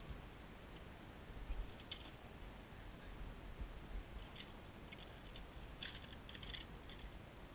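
Zipline carabiners and trolley hardware clinking as a rider is clipped onto the cable: faint, scattered metallic clicks and jingles, with a quick cluster about six seconds in.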